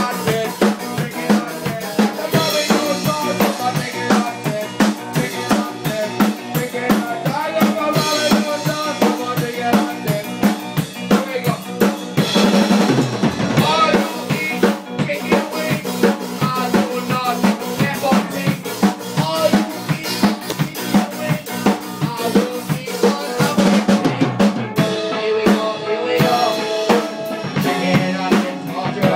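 Live ska band playing an improvised number: a drum kit's snare and bass drum keep a steady driving beat under other pitched instruments.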